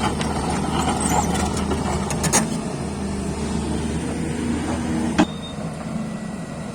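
Heavy-equipment diesel engine running steadily, with two sharp metallic knocks about two and a half and five seconds in; the second knock is the loudest.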